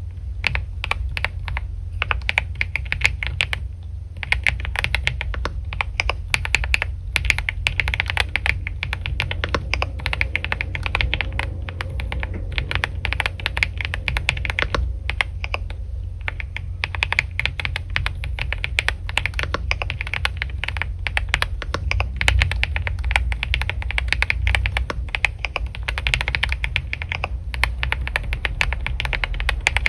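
Continuous typing on a computer keyboard: rapid key clicks in runs broken by short pauses, over a steady low hum.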